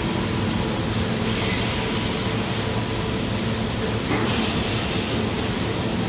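Steady industrial machinery running with a constant low hum, and two hissing spells of about a second each, one about a second in and one about four seconds in.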